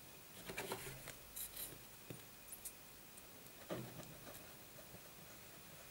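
Faint, scattered handling sounds: a fabric-covered padded disc and a cardboard disc rustling and rubbing in the hands, with a few brief soft scrapes.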